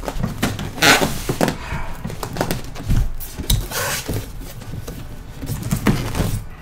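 Cardboard box and foam packing inserts scraping, rubbing and knocking as a boxed monitor is tugged and shifted out of its packaging. Louder scrapes come about a second in, near four seconds and near six seconds.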